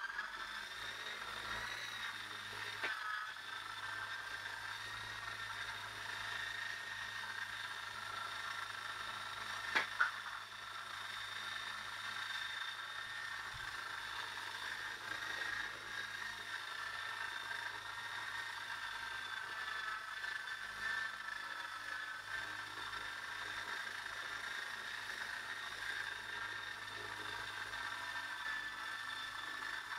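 Esky Lama V4 coaxial RC helicopter with upgraded Xtreme motors flying: a steady high whine from its electric motors and rotors, held at one pitch. A short sharp click about ten seconds in.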